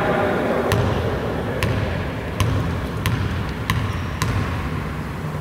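A basketball is bounced on a wooden court floor in a player's dribbles before a free throw: about six bounces, roughly two thirds of a second apart.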